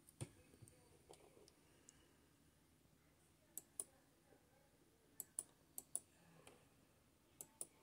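Near silence broken by a dozen or so faint, sharp clicks, several of them in quick pairs.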